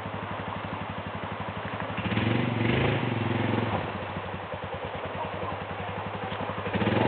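Quad bike (ATV) engine idling with a steady fast putter. It is revved up briefly about two seconds in, and again near the end.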